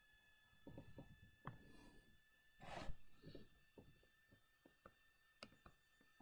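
Near silence: faint clicks and taps of a stylus on a tablet screen as handwriting goes on, over a faint steady electronic whine. One short rushing noise about three seconds in is the loudest sound.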